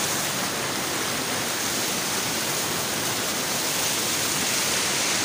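A small waterfall pouring over rocks into a churning pool: a steady, even rush of water.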